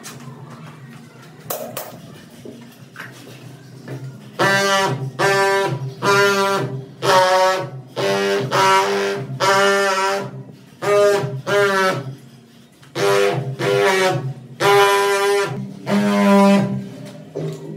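Background music: a melody of separate held notes over a low steady accompaniment, coming in about four seconds in after a quiet start.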